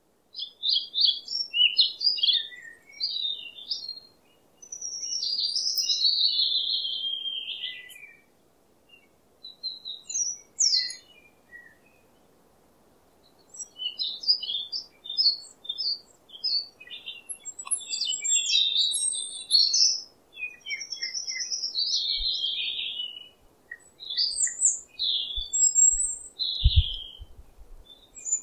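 Small birds chirping and singing: many quick, high chirps and short trills in overlapping runs, with a couple of brief pauses.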